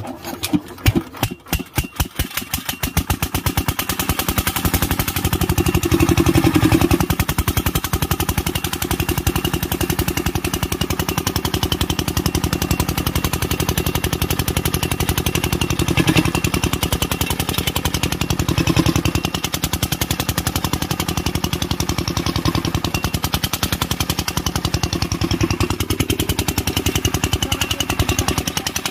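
Single-cylinder Kirloskar diesel engine firing with slow, separate beats for the first couple of seconds, then picking up speed and running steadily with an even, rapid knock.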